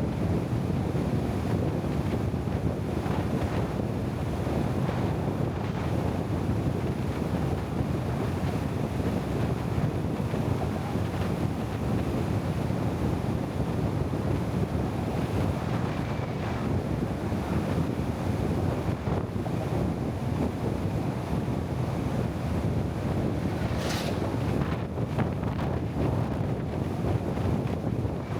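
Steady low rumble with wind buffeting the microphone. One brief sharp click about 24 seconds in.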